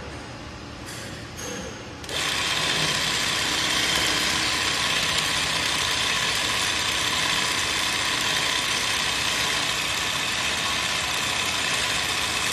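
ZOYER ZY20U43 industrial zigzag lockstitch sewing machine. For the first two seconds it is quieter, with a few single clicks; then it starts running steadily at speed, stitching through denim.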